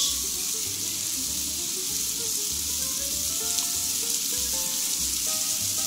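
Beef and mixed-vegetable stir-fry sizzling steadily in a hot nonstick frying pan, just after soy sauce has gone in.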